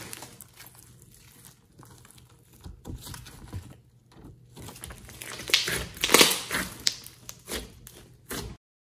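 Hands squeezing and stretching a thick lump of glossy slime, making irregular crackling and popping sounds. The sound is loudest about five and a half to six and a half seconds in, and cuts off suddenly shortly before the end.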